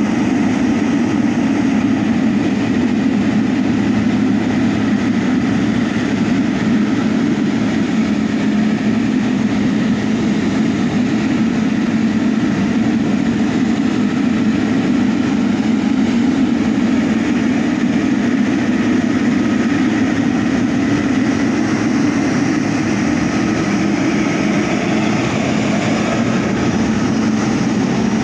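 Airliner's jet engines running steadily: a loud, even rumble with a faint high whine over it.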